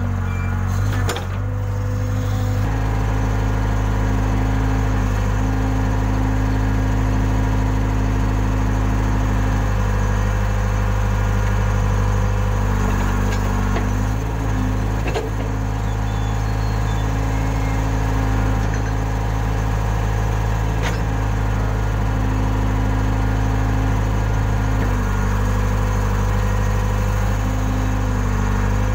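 Case 580K backhoe loader's four-cylinder diesel engine running steadily while digging. Its note dips briefly a few times, and there are a few short metallic knocks, the plainest about 15 seconds in.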